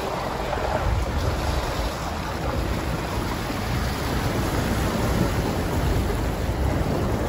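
Steady rumbling wind noise on the microphone outdoors, rising and falling slightly in level.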